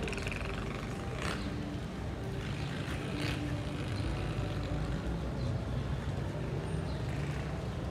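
A motor vehicle engine running steadily, a low hum under street noise, with brief louder swooshes about one and three seconds in.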